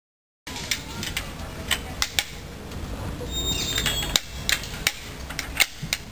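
Playground ambience starting about half a second in: a low rumble with scattered sharp clicks and knocks, and a brief high whistle-like sound about three and a half seconds in.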